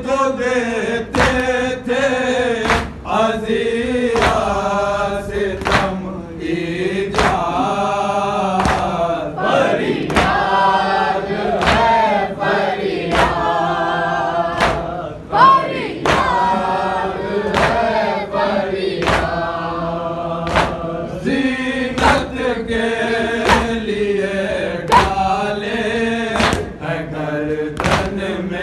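A group of men chanting a noha, a Shia mourning lament, in unison, with sharp strokes of hands beating on chests (matam) in a steady rhythm a little faster than once a second.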